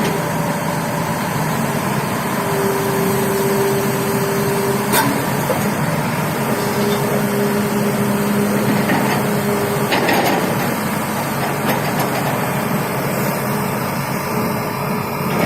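Hitachi 330H hydraulic excavator running under work, a steady engine drone with a hydraulic whine that comes in twice for a few seconds at a time. A couple of sharp knocks sound about a third and two thirds of the way through.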